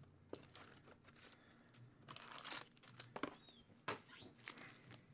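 Faint crinkling and rustling of a foil-wrapped trading-card pack and its box being handled, with a short louder rustle about two seconds in and a couple of light clicks shortly after.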